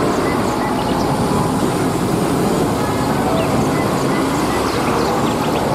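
Intercity coaches driving past on a road: steady engine and tyre noise of passing heavy traffic.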